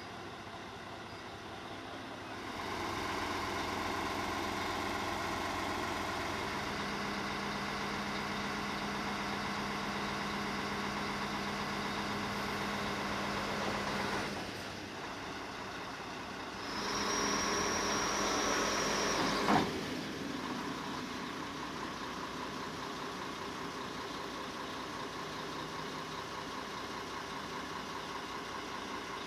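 Heavy diesel vehicle engine running. About two seconds in it speeds up and holds steady until it drops back after fourteen seconds. It rises again briefly with a thin high steady whine, which ends in one sharp clack, and then it settles back to idle.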